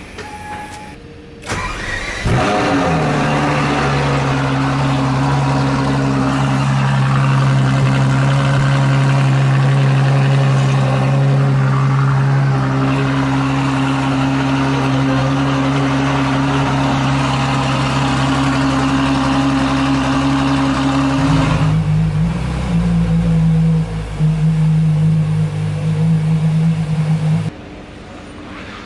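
Ferrari LaFerrari Aperta's 6.3-litre V12 starting up about two seconds in and settling into a steady, loud idle. About 21 seconds in the idle steps up in pitch, dipping briefly a couple of times, and the sound stops abruptly near the end.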